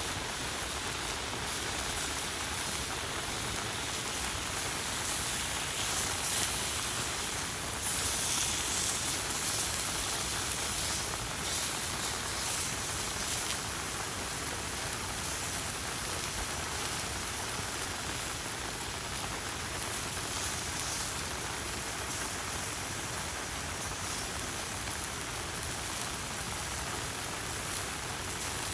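Steady rain falling, a hiss of drops with no single strokes standing out, a little heavier for a few seconds around the middle.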